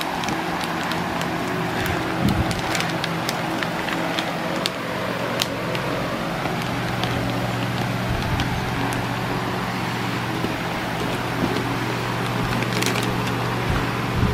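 Masking tape and masking paper being peeled off a freshly painted sheet-metal engine cover, with scattered crackles and clicks of tape and paper and a thump a little after two seconds in. Under it a steady electric hum from a running shop fan, growing stronger about two thirds of the way through.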